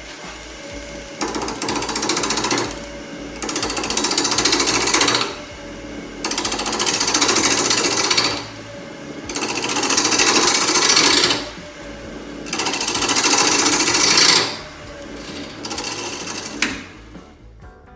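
A turning gouge cutting the outside of a spinning cherry burl on a wood lathe in six passes of about two seconds each, each with a fast rattle, the lathe humming steadily in the pauses between cuts.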